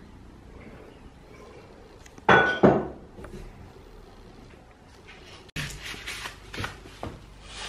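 Sharp household clatter: a loud double knock about a third of the way in, then, after an abrupt cut, a run of light knocks and rattles from a kitten batting a small ball on a wooden floor beside a plastic tub.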